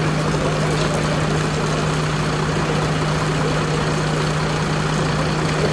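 Fire engine's engine idling with a steady, unchanging hum under a broad rushing noise.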